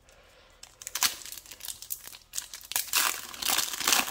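Foil wrapper of a Yu-Gi-Oh booster pack crinkling and tearing as it is pulled open by hand, in irregular crackles that start about a second in and grow busier near the end.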